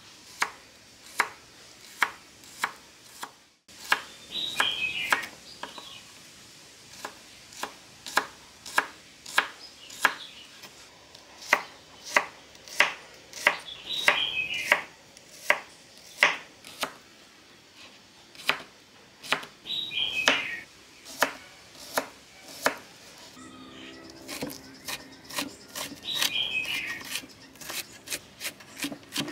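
Chef's knife slicing shallots on a wooden cutting board, each cut a sharp knock on the board, about one a second, coming quicker near the end as the pile is chopped.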